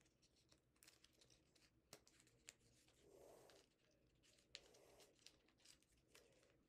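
Very faint crinkling and small ticks of a folded paper origami model being pressed into shape by hand, with two slightly longer rustles about three and five seconds in.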